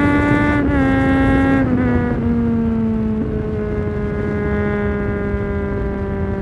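2009 Triumph Street Triple 675's inline-three engine through a Leovince GP 3-2 exhaust with dB-killer, heard from the rider's seat while riding. The engine note drops in three quick steps within the first two seconds or so as the rider shifts up, then settles into a steady drone that falls slowly as the bike cruises.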